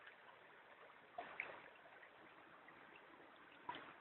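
Faint trickle of a shallow stream, with small splashes twice, about a second in and near the end, from a Shih Tzu wading and dipping its muzzle into the water.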